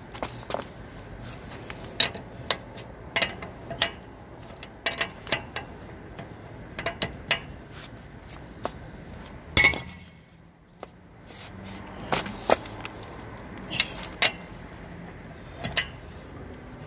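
Steel lug wrench clinking and knocking against the wheel's lug nuts as they are loosened one by one: irregular sharp metallic clicks, with a short quieter pause about ten seconds in.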